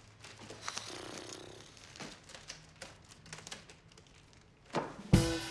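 Wrapping paper and ribbon rustling and crinkling in light, irregular handling noises as a gift-wrapped box is untied and unwrapped. About five seconds in, drum-kit music starts with loud hits.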